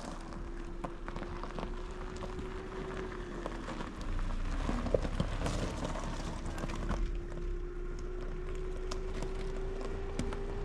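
Car driving slowly on a gravel track: tyres crunching and popping over loose stones, with a steady low engine hum.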